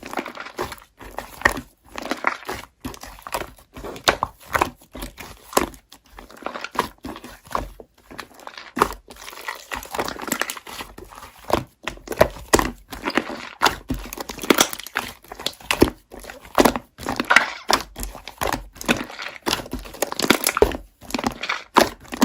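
Slime being squeezed and pressed by hand, giving a dense, irregular run of crackles and pops.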